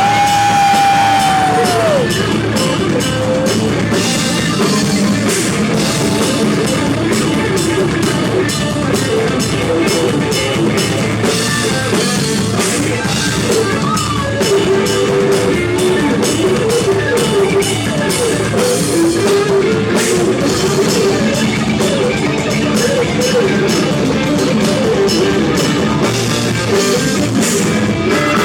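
Live rock band playing an instrumental passage: a drum kit and electric guitar, with a long held high note near the start that drops away about two seconds in, then moving melodic lines over steady drumming.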